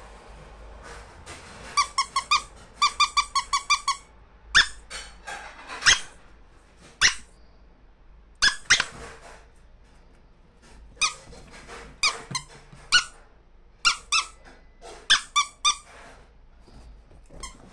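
Dog's squeaky toy squeaking over and over: a quick run of four, then a run of about seven, then single squeaks and short runs spread out to near the end.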